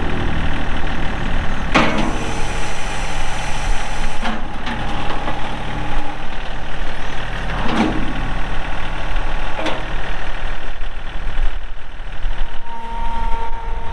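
John Deere 2032R compact tractor's three-cylinder diesel engine running steadily while it works its hydraulics. A hydraulic whine comes and goes, and there are four sharp clunks from the loader or backhoe.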